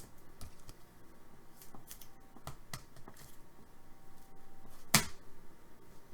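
Trading cards being handled: scattered soft clicks and taps as cards are flipped and shuffled through, with one sharper snap about five seconds in.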